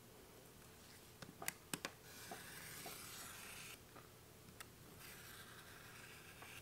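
Razor knife blade drawn along a steel ruler, cutting a sheet: a few light clicks as the blade is set, then a scratchy cutting stroke of under two seconds, and a fainter second stroke near the end.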